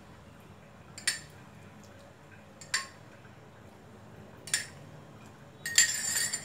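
A spoon clinks sharply against a stainless steel bowl three times, a second or two apart, while water is stirred into coarsely ground oats. Near the end comes a scratchy rubbing as fingers work the damp oat flour against the bowl.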